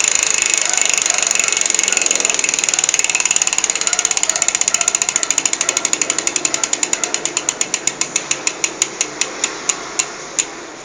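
Hope Pro 2 Evo rear hub freewheel clicking as the wheel coasts, a loud rapid buzz of pawl clicks that slows steadily until the last few clicks come apart, the wheel spinning down to a stop near the end.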